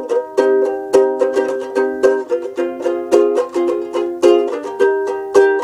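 Ukulele strummed in steady chords: an instrumental passage between sung lines.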